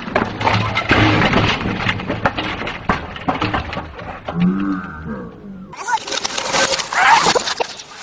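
Slowed-down, slow-motion sound of a bike crash: voices and noise stretched into deep, drawn-out low tones. A little before the end it cuts suddenly to normal-speed sound, noisier and brighter, with voices.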